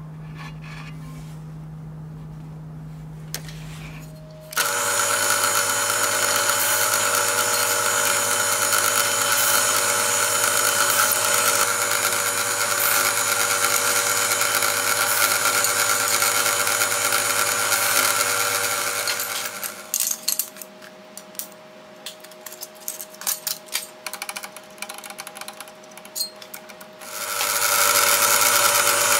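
Drill press running and boring into a walnut block: a steady machine whine that comes in loud about four seconds in. Near two-thirds of the way through it drops away to a quieter stretch with light clicks and knocks, then comes back loud near the end.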